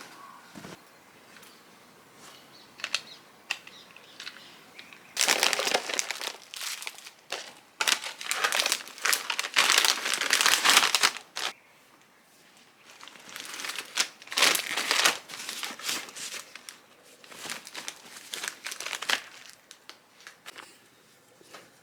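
Plastic snack packaging crinkling and rustling as it is handled. It comes in several loud spells of a few seconds each, the longest in the first half.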